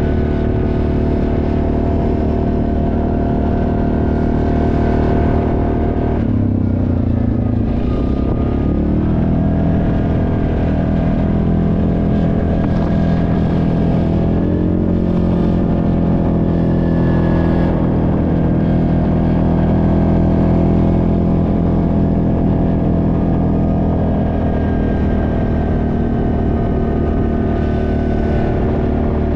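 ATV engine running under way at a steady cruising pace. Its pitch drops sharply about six seconds in and climbs back over the next few seconds, with another smaller dip about halfway through.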